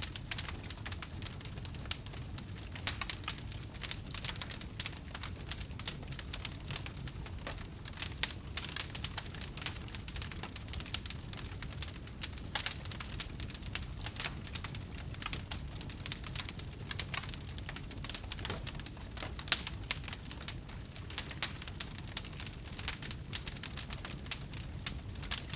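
Wood fire burning, with a constant scatter of small sharp crackles and pops over a low steady rumble of the flames.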